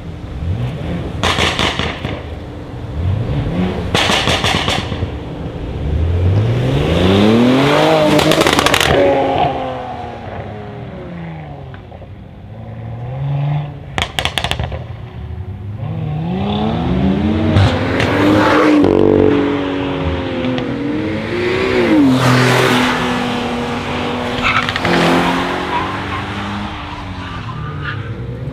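Brabus-modified Mercedes-AMG GLE43's twin-turbo V6 and exhaust: sharp crackles and pops come a few seconds apart, and the engine revs in two long spells of accelerating, its pitch rising and falling, settling to a steadier note near the end.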